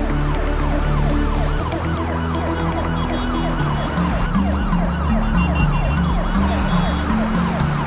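Cartoon emergency-vehicle siren sound effect wailing in fast rising-and-falling sweeps, about three a second, over a backing music track.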